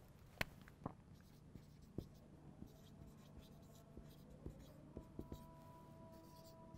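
Faint marker-pen strokes on a whiteboard as words are written, with a few light ticks and taps of the pen tip on the board.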